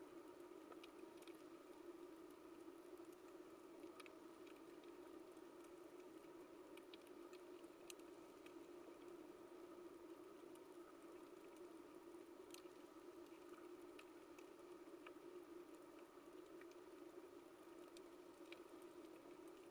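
Faint underwater coral-reef ambience: a steady low hum with scattered, irregular sharp clicks and crackles.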